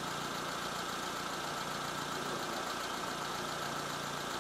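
Vehicle engine idling steadily: an even low hum under a constant hiss.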